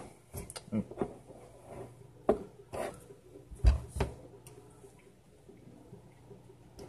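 A spoon scraping and clinking in a cup of brownie as it is eaten: several short scrapes and knocks in the first four seconds, fainter and sparser after that.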